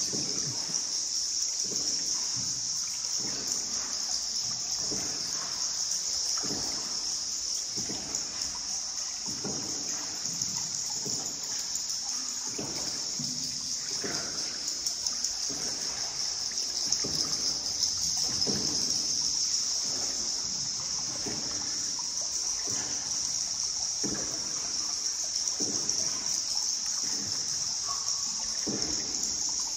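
A paddle dipping into water in a steady rhythm, about one stroke a second, with splashing and trickling water. A steady high-pitched drone runs underneath.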